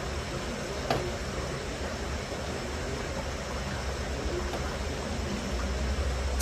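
Steady hiss of background noise while a slingshot is held drawn and aimed, with one faint click about a second in. Right at the end, the slingshot is released with a sharp snap.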